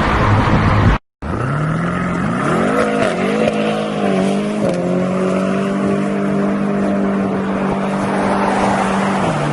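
A car engine revved in several quick blips, then held at steady high revs for a few seconds before the pitch drops a step near the end. Before it, a different loud noisy sound cuts off abruptly about a second in.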